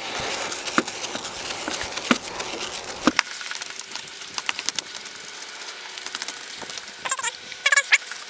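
Wet 3000-grit sandpaper rubbed up and down on a plastic headlight lens, a continuous scratchy rasp with small ticks. It turns lighter and thinner after about three seconds, with two short squeaks near the end.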